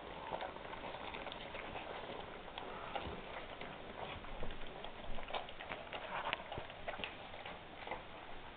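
A litter of 3½-week-old Great Dane puppies eating together from a shared tray: busy chewing, slurping and lip-smacking, a dense run of small wet clicks with a few sharper taps of paws and muzzles on the tray.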